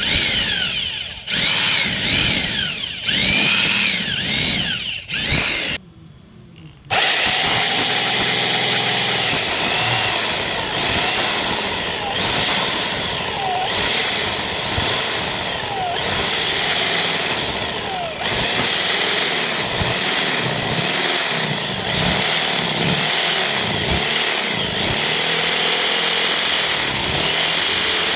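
Mini drill motor whining: several short bursts that rise and fall in pitch as it spins up and down, a brief pause about six seconds in, then steady running for the rest.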